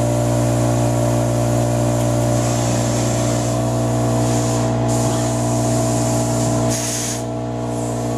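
CNC router running with a steady machine hum made of several steady tones. Near the end comes a short blast of compressed-air hiss while the spindle head is at its automatic tool rack.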